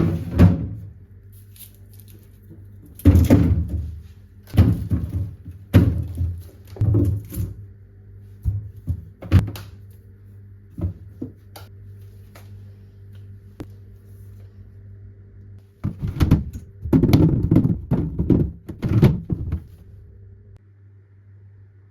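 A series of dull thunks and knocks, in irregular clusters, as household things are handled and put down, over a steady low hum.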